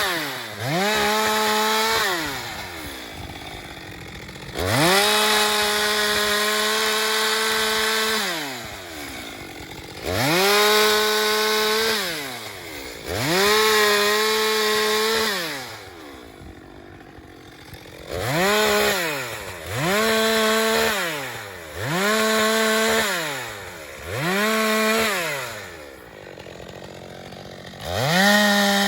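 Two-stroke chainsaw revved to full throttle and dropped back to idle about nine times, each burst held for one to three seconds, the longest about a second into the sound and lasting over three: short cuts bucking a felled tree into lengths.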